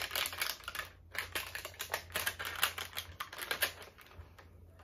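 Rapid, irregular clicks and crinkles from a plastic screen film and packaging being handled.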